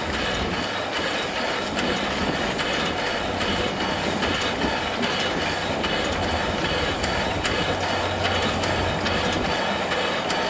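Miniature steam locomotive chassis running on a stand with its driving wheels off the rails, the coupling rods and valve gear turning and steam escaping, giving a steady mechanical clatter and hiss with regular soft beats.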